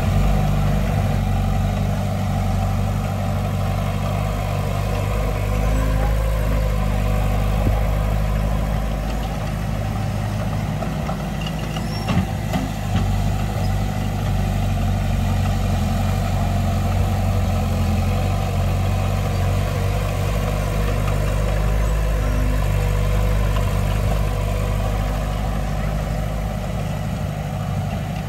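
Heavy diesel engine of earthmoving machinery running steadily with a deep, even drone, with a brief clank about twelve seconds in.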